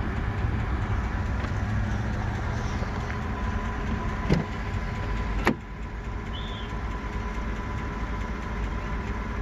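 Steady low rumble of road vehicles, with a faint steady high tone over it. There is a click about four seconds in and a sharper click about five and a half seconds in, after which the sound gets a little quieter.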